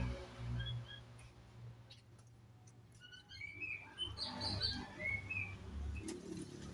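Small birds chirping: scattered short, high chirps, most of them in the second half, over a low steady hum.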